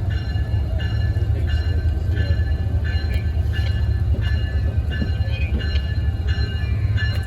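Passenger train running with a steady low rumble, under music with short notes repeating about every half second.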